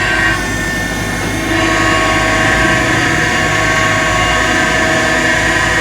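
Crane truck's engine and hydraulics running steadily under load while the boom and winch lift the pontoons, getting louder about a second and a half in.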